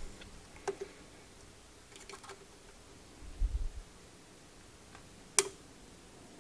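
A few light clicks and taps of multimeter test probes being handled and pressed against the pins of a tube socket, with one sharper click about five seconds in and a soft low bump about three and a half seconds in.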